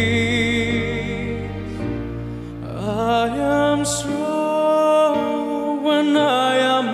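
A man singing a slow, sentimental ballad live, holding long notes with vibrato over a soft backing accompaniment.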